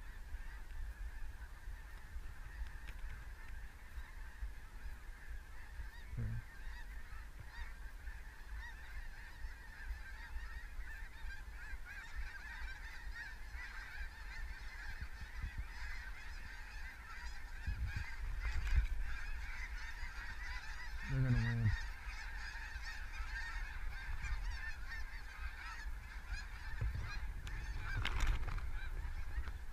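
A large flock of snow geese calling overhead: a continuous dense chatter of many high-pitched honks, thickest through the middle. A few low bumps on the microphone come and go beneath it.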